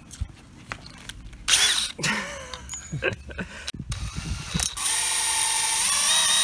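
Power drill being readied and run: irregular clicking and rattling of the chuck and bit, then from about five seconds in the drill motor runs at a steady speed, drilling a small hole in a steel EGR block-off plate.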